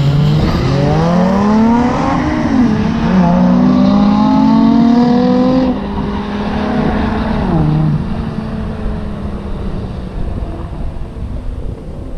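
Vehicle engine launching off the line and accelerating hard. Its pitch climbs and drops back at each upshift, about two and a half, five and a half and seven and a half seconds in, then the sound fades as the vehicle pulls away.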